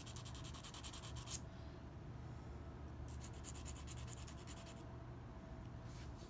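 Glass nail file rasping on a dentalium shell in rapid back-and-forth strokes, in two bouts of about a second and a half each, smoothing the shell's broken end.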